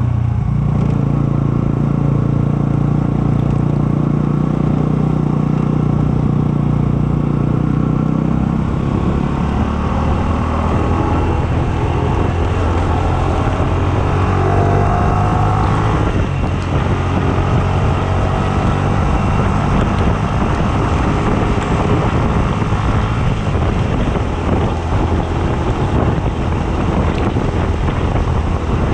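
Yamaha sport motorcycle's engine running along at road speed, its note dropping to a lower, steady pitch about nine seconds in, with wind rushing over the microphone and tyres hissing on the wet road.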